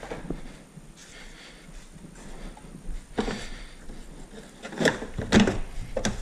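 Trim cover clips on a Tesla Model S frunk being pressed into place by hand: low rubbing and handling noise, then several sharp clicks and knocks in the second half as the clips are pushed home.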